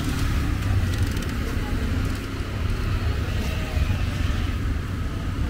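City street ambience: a steady low rumble of road traffic with faint voices in the background.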